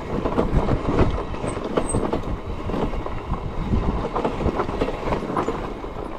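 Fat-tyre electric bike rolling downhill over a rough dirt track: tyres crunching over dirt and stones and the bike rattling continuously over the bumps.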